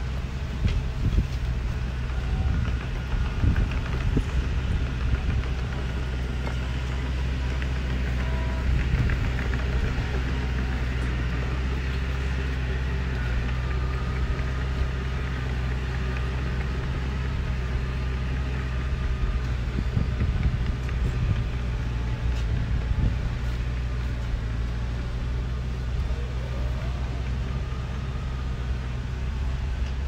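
Diesel engine of heavy earthmoving machinery running steadily, with a deep, even drone.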